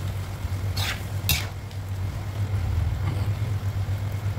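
Slotted spatula stirring chicken and water spinach in a non-stick wok, with two short sharp scrapes against the pan about a second in, over a steady low hum.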